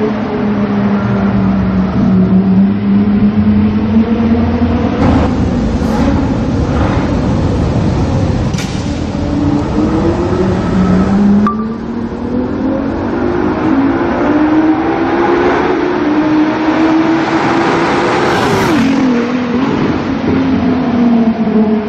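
Supercar engine revving and accelerating, its pitch dipping and climbing with the revs. A few sharp cracks come in the middle, and a long rise in revs drops off suddenly near the end.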